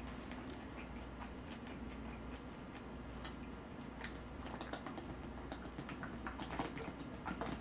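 Faint scattered clicks and ticks of eating and drinking: chewing, then swallows from a plastic water bottle, with one sharper click about four seconds in.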